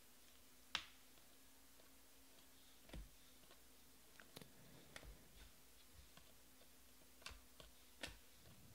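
Scattered faint clicks and taps of stiff, glossy Panini Prizm baseball cards being flipped through and handled, the sharpest about a second in. Between them is near silence.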